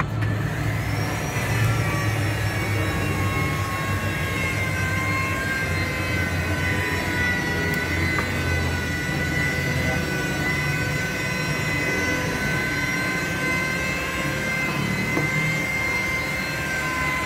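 A steady mechanical whine from a running motor, rising in pitch about a second in and then holding steady over a low hum.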